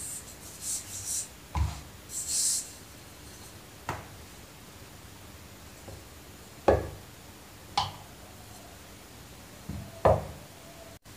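Stainless-steel rolling pin rolling papadam dough on a floured wooden board: soft brushing and rubbing at first, then several separate knocks as the pin meets the board.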